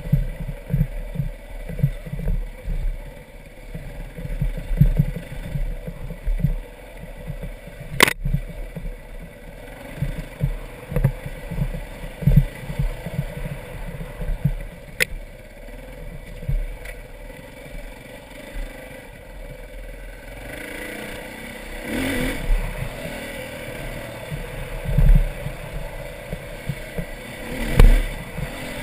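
Dirt bike engine running as it is ridden over a rough dirt trail, heard from the rider's helmet, with many short low thumps. There are two sharp clicks, about eight and fifteen seconds in, and the engine grows louder around twenty-one seconds in.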